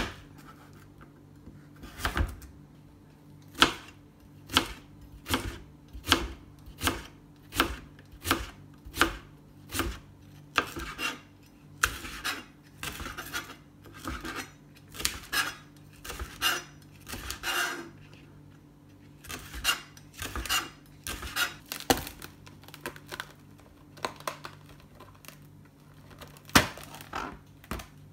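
Kitchen knife chopping vegetables on a plastic cutting board: carrot, and later a Japanese long green onion, with a sharp knock of the blade on the board about once or twice a second. In the middle the strokes come closer together with a crisper crunching, and they thin out to a few single knocks near the end.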